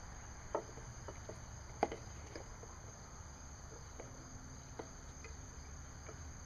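Scattered light clicks and taps of plastic and metal as a lawnmower engine's recoil starter pulley is pried and lifted out of its housing. Under them runs a steady high chirring of insects.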